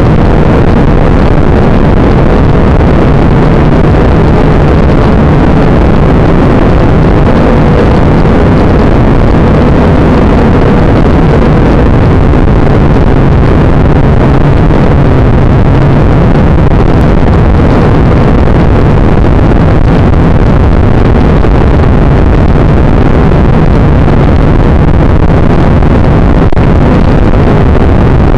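Drone's electric motors and propellers running steadily, heard very loud through its onboard camera as a continuous noise with a faint steady hum.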